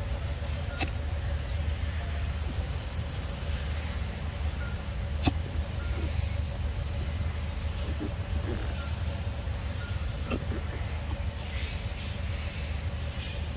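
Forest insects buzzing in a steady high drone over a constant low rumble, with a couple of sharp clicks, one about a second in and a louder one about five seconds in.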